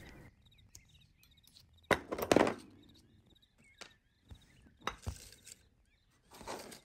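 Watercolour half pans being picked up and set down on a tabletop: a few light knocks and clicks, the loudest about two and a half seconds in, with a short scraping noise near the end.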